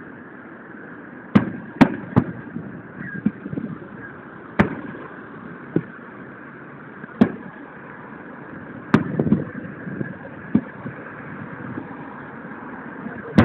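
Aerial firework shells bursting: a string of sharp bangs at irregular intervals, three in quick succession about a second and a half in and another cluster around nine seconds in, with softer pops between. Heard through a mobile phone's microphone.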